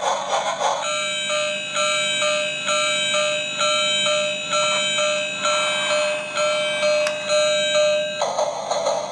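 Pan Asian Creations lighted Christmas toy locomotive's built-in sound chip: a rhythmic train-chugging effect, then about a second in a tinny electronic Christmas tune of repeating notes, with the chugging returning near the end.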